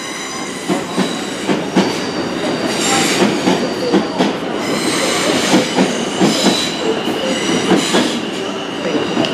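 South West Trains Class 444 Desiro electric multiple unit departing, its wheels clicking over the rail joints with a steady high-pitched whine.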